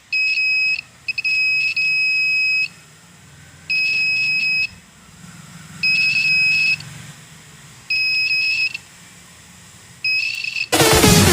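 Small buzzer of a homemade bicycle security alarm sounding a steady high-pitched beep in bursts of about a second, about six times, one of them longer. Loud electronic music cuts in near the end.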